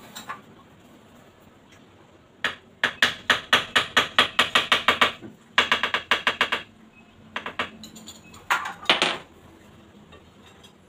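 Quick runs of light taps on a wall tile as it is knocked into place with a hand tool: a long run of about five taps a second, then three shorter bursts.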